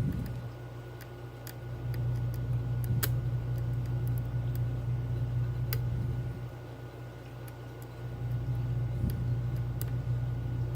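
Scattered small metallic clicks and ticks of lock picking tools working the pins of a Medeco Keymark key-in-knob cylinder, over a steady low hum.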